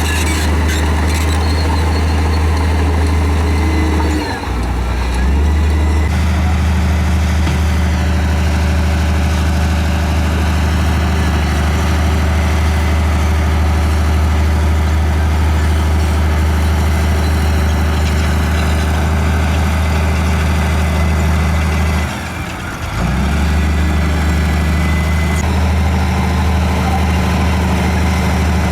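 Bulldozer's diesel engine running with a steady low drone, which twice briefly drops away and picks back up: once about four seconds in and again about two-thirds of the way through.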